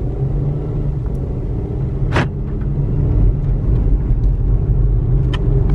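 Car driving on the road, heard from inside the cabin: a steady low engine and road rumble, with one short sharp click about two seconds in.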